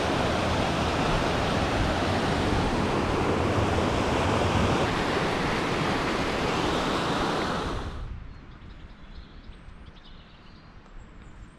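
Rushing stream water pouring over small stepped weirs, a loud steady wash of noise that cuts off about eight seconds in, leaving a much quieter outdoor background.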